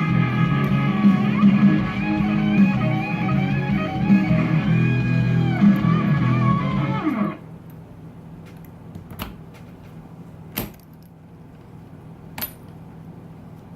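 Plucked guitar music that stops abruptly about seven seconds in, followed by a quieter stretch with a few sharp, separate clicks.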